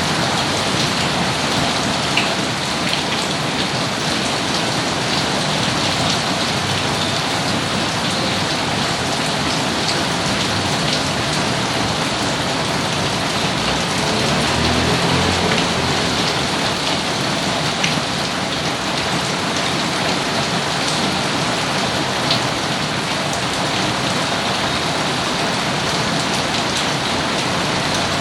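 Steady rainfall on surfaces, an even hiss with a few sharper drips now and then. A brief low rumble comes about halfway through.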